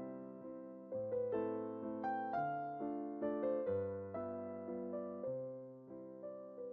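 Background music on a piano-like keyboard: a gentle melody over chords, each note struck and fading away.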